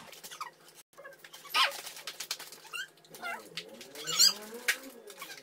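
Plastic wrapper of a polvoron packet crinkling and crackling as it is torn open by hand, with sharp crackles about a second and a half in and again just past four seconds. A soft, wavering low-pitched sound runs in the background from about three seconds in.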